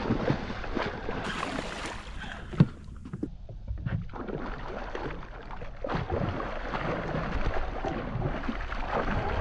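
A large hooked snook thrashing and splashing at the surface close to the boat, heard as irregular churning water noise. A single sharp knock comes about two and a half seconds in.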